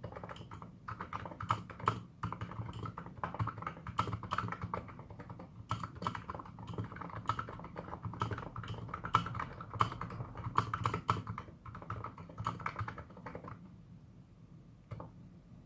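Typing on a Plum Nano 75 electro-capacitive keyboard with Filco double-shot keycaps: a quick, uneven stream of keystrokes that thins out near the end, with a few last strokes.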